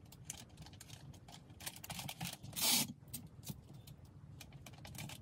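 Paper and padded mailing envelopes rustling and scraping on a desk as items are packed, with one louder, brief rasping rustle about halfway through.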